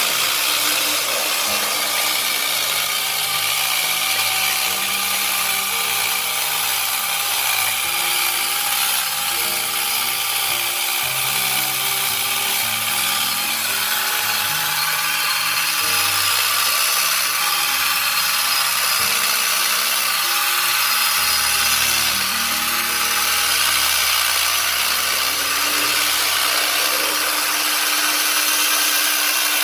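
A power tool running steadily while cutting into wood, its pitch wavering slightly as the load changes.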